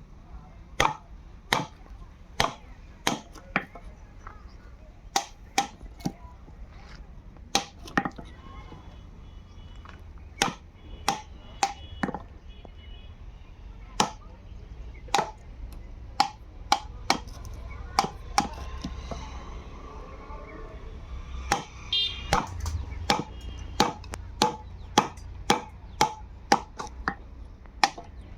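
Repeated hammer blows on wood in carpentry, sharp single strikes roughly a second apart, coming faster, about two a second, near the end.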